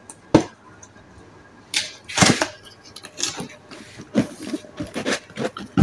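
Cardboard product box being opened by hand: a sharp click about a third of a second in, then a run of short, irregular scraping and rustling noises as the tape seal is peeled and the lid is worked loose.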